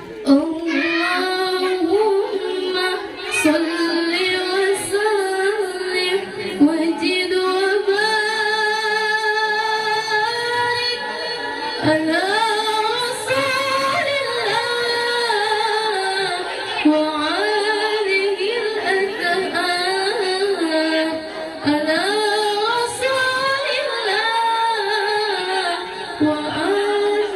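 A woman's solo voice reciting the Qur'an in the melodic tilawah style, with long held notes that waver and glide in ornamented phrases.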